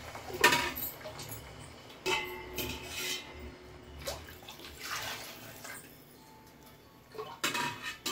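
Metal slotted spoon clanking against the side of a metal cooking pot while stirring water into fried onions and dal, several separate ringing knocks with the water swishing between them.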